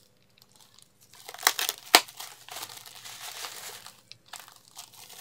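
Plastic bubble wrap crinkling and rustling as it is handled and secured around a small package. It starts after about a second of near quiet, and a few sharp clicks come about one and a half to two seconds in, the loudest of them at two seconds.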